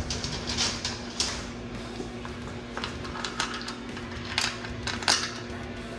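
Scattered light metallic clicks and taps as the side cover and its bolts are handled and fitted onto a Ducar 212 engine block, over a steady hum of shop background noise.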